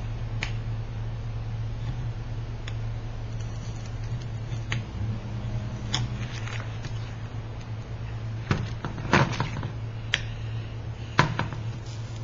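Scattered light clicks and taps from hand work on a stained-glass piece, with a cluster of sharper clicks about nine seconds in and another sharp click near the end, over a steady low hum.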